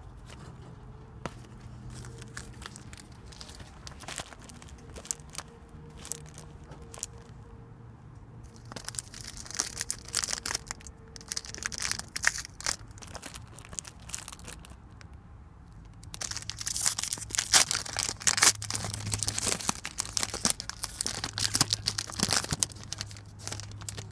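Plastic trading-card pack wrapper being crinkled and torn open by hand, in two bouts of rustling, the louder one in the second half.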